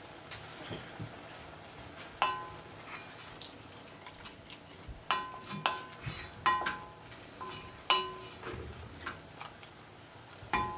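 Wooden spoon stirring a thick stew in an enamelled cast-iron pot, knocking against the pot about six times. Each knock gives a short ringing clink.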